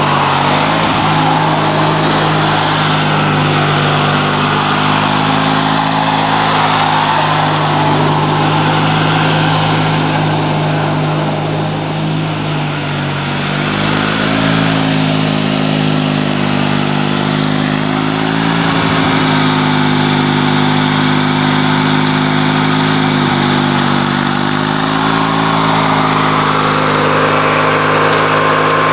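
Briggs & Stratton 16 hp opposed-twin engine of a 1990 Montgomery Ward lawn tractor running steadily while the tractor is driven, its pitch rising and falling slightly a few times.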